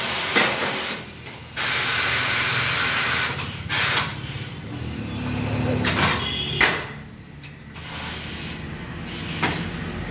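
Pneumatic bead breaker of a tyre-changing machine letting compressed air in and out in long hissing stretches, with a few sharp knocks as the wheel is handled on the machine.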